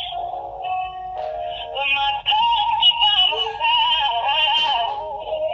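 A pop song with a wavering sung vocal playing from a flip phone's small speaker, thin and tinny with almost no bass. The song is a second-hand recording, taken by holding the flip phone against an iPhone playing it.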